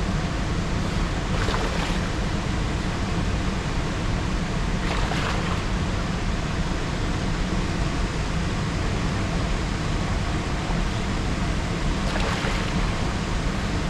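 Steady rushing noise of moving river water and wind on the microphone, heaviest in the low rumble. A few brief louder rushes come about a second in, around five seconds, and near the end.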